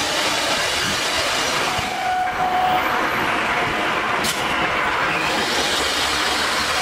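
Four-spindle CNC router running, its spindles spinning and a lowered spindle cutting into the board, giving a steady dense machine noise. A faint whine comes in about two seconds in, and a brief sharp sound is heard a little over four seconds in.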